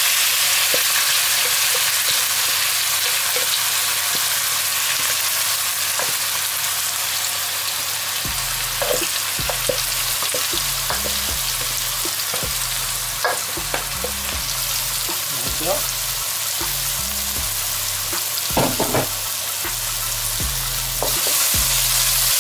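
Freshly chopped onions sizzling steadily in hot oil, the early stage of frying them down to light brown. A wooden spoon scrapes and stirs through them a few times in the second half.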